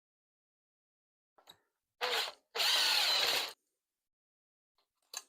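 A handheld power tool running in two short bursts, the first about half a second and the second about a second, with a few light clicks before and after.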